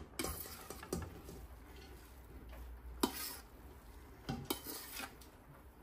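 A spoon knocking and scraping against a cooking pot as rice is spooned in, with scattered light clinks, the sharpest about three seconds in.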